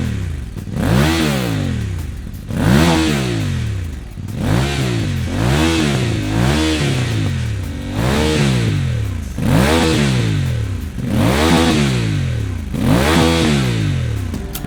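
Voge DS 800 X Rally's parallel-twin engine revved through a Scorpion stainless slip-on exhaust: about nine quick throttle blips, each rising and falling back to idle.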